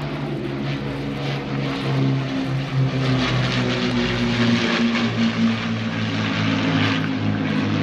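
Low, steady drone of propeller piston engines as an Avro Lancaster, with its four Rolls-Royce Merlin V12s, flies past in formation with a Spitfire and a Hurricane. The pitch wavers slightly, and the sound swells a little about two seconds in.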